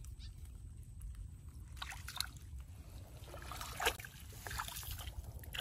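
Feet sloshing and splashing through shallow, muddy rice-paddy water, with a few irregular splashes from about two seconds in; the loudest comes near four seconds. A steady low rumble runs underneath.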